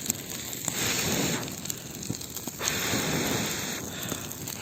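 Small campfire crackling and hissing, with a plastic canister burning in it. Twice the hiss swells louder for about a second.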